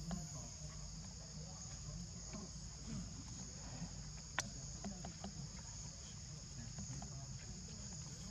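Steady, high-pitched chorus of forest insects, with one sharp click about four seconds in.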